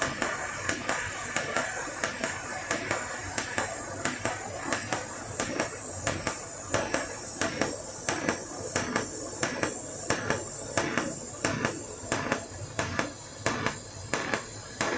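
TIG welding arc on thin stainless steel under argon, laid without filler rod: a steady hiss with a regular crackle about twice a second.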